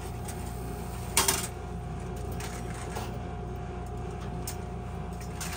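Skill game machine humming steadily with a faint constant tone. There is one sharp clack about a second in, then a few light clicks.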